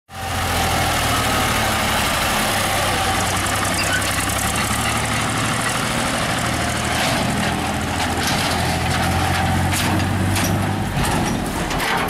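Tractor engine running steadily at idle, with a few short clicks over it in the second half.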